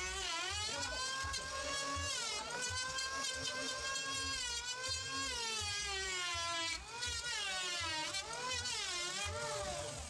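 Electric hand planer running along a wooden door frame, its motor whine dropping in pitch as it cuts and rising again as it frees up, several times over.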